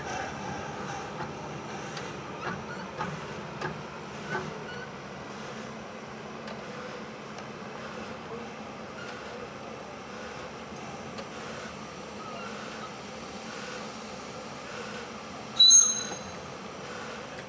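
1½-inch-scale live steam locomotive creeping slowly onto a turntable: a steady low rumble and hiss, with a few sharp clicks in the first few seconds. About a second before the end comes a short, high ringing note, the loudest sound here.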